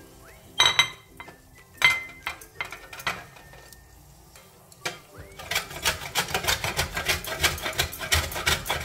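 A stainless steel box grater and a ceramic plate clack twice as they are set down on a stone counter, then dried coconut is grated on the box grater in rapid scraping strokes, several a second, over the last few seconds.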